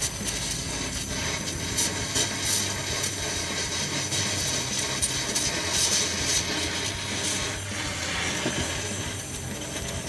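Gas welding torch flame hissing steadily against a broken exhaust pipe as it is welded, with scattered crackles from the sparks.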